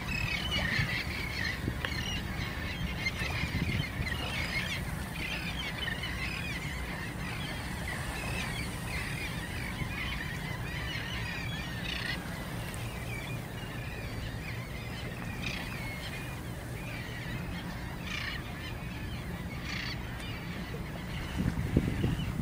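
A flock of birds calling, many short chirping calls that come thickly at first and more sparsely later, over a steady low rumble. A few knocks sound near the end.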